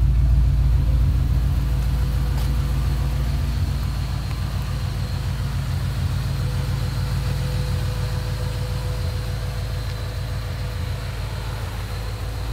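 Modified 2007 Shelby GT500's supercharged V8 idling with a steady, pulsing low rumble, breathing through long-tube headers with no catalytic converters.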